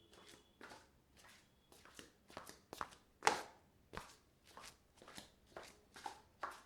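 Footsteps in slippers on a marble floor: a string of soft slaps, about two a second, the loudest a little after three seconds in.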